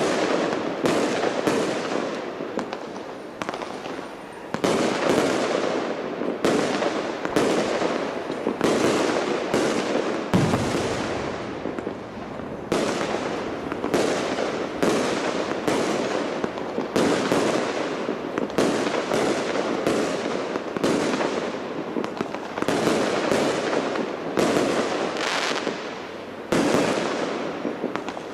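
Large fireworks display: a dense, continuous barrage of bursts, often several bangs a second, each one trailing off in echo.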